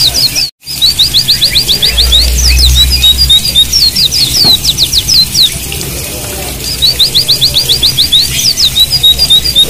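White-eyes (pleci, Zosterops) singing: many quick, high, down-slurred notes and rapid trills, repeating throughout. The sound drops out completely for a moment about half a second in.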